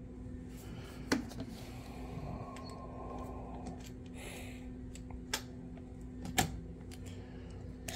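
Quiet handling noise: a few light clicks and knocks as a cordless drill and a circuit breaker are set against a bike frame, over a steady low hum. The drill motor does not run.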